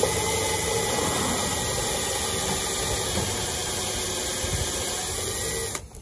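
Cordless drill with a step bit running steadily, cutting a hole through a bus body panel; it stops shortly before the end.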